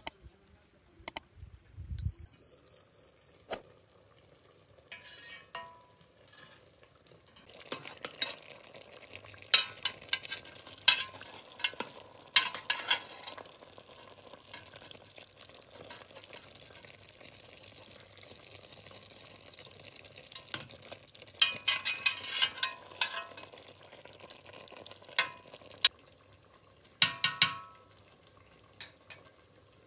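A metal spoon stirring and scraping through chicken stew in a stainless steel pot, with repeated sharp clinks against the metal over a faint steady hiss. About two seconds in there is a short high ding, and near the end a metal pot lid clanks a few times.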